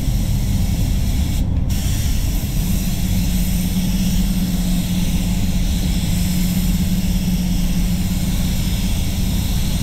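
Compressed air hissing through an Avalon Beyond Nova spray gun as clear coat is sprayed onto a car panel, over the steady hum of the spray booth's fans. The hiss breaks off briefly about a second and a half in, then runs on.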